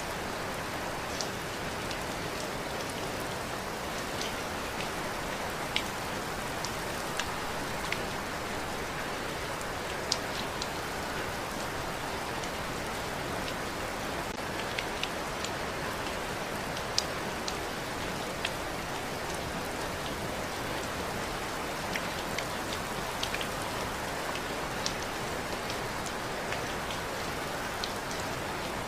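Steady rain falling, with scattered, irregular sharper ticks of single drops over the even hiss.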